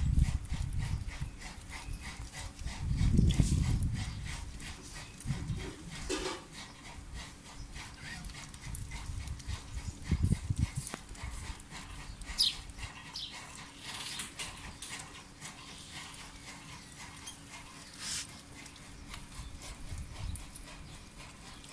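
Domestic ducks feeding from a steel bowl: their bills dabble and tap against the metal in many quick, irregular clicks, with a few short squeaks. A low rumble comes about three seconds in.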